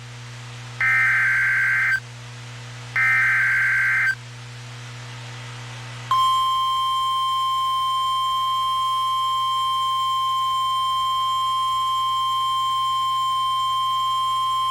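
Emergency Alert System SAME header: two one-second bursts of warbling data tones, then about two seconds of pause, then the steady single-pitch weather-radio attention tone that starts about six seconds in and holds. It signals the start of a new National Weather Service severe thunderstorm warning; a low hum runs underneath.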